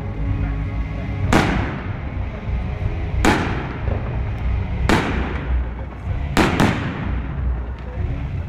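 Aerial firework shells bursting overhead: five sharp bangs a second or two apart, the last two in quick succession, each trailing off in a long echo.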